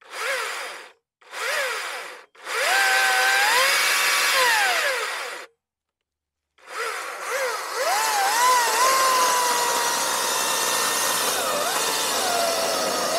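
Harbor Freight Atlas 80V brushless cordless chainsaw: three short trigger squeezes whose whine rises and falls, then a run of about three seconds. After a short pause it starts again and runs continuously, its pitch sagging and wavering as the chain cuts into a log.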